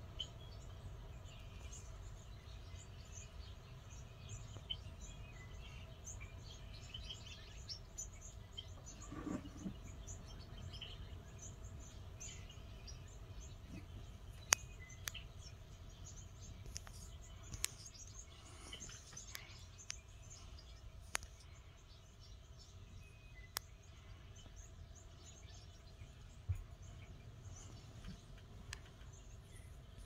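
Small birds chirping and twittering in many short high calls over a steady low wind rumble, with a few sharp clicks in the second half.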